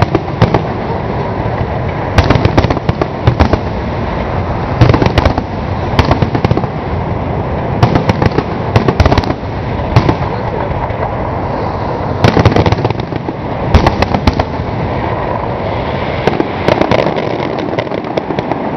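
Aerial fireworks shells bursting in clusters of sharp bangs every second or two, over a continuous noisy rumble from the display.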